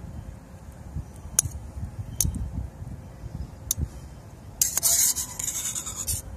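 Utensils clinking and scraping against a cup as ramen noodles are stirred, with a few sharp clicks, over a low rumble of wind. A loud burst of hiss comes about a second before the end.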